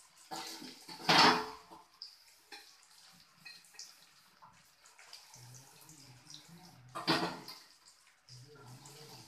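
Dishes being washed by hand in a stainless steel sink: water splashing and dishes handled, with two short, louder bursts of splashing about a second in and about seven seconds in.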